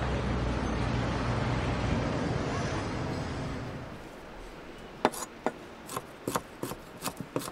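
A steady wash of city ambience that fades out about four seconds in, then a knife chopping pickled olive flesh on a cutting board in sharp strokes, about three a second.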